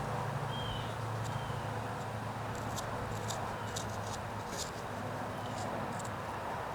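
Light, irregular scraping strokes on a small carved wooden canoe as it is whittled and smoothed, each a short sharp scratch, over a steady low hum.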